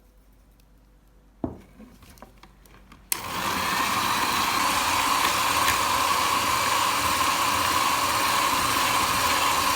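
A knock about a second and a half in, then an electric mixer switches on about three seconds in and runs steadily at a constant speed, beating cream cheese with vanilla and powdered sugar.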